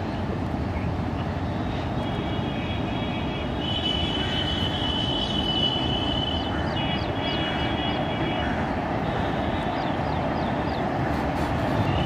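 Passenger train rumbling steadily across a steel truss rail bridge, growing slightly louder. A high steady whine rises over it for a few seconds in the middle, and a run of short high chirps comes around the middle.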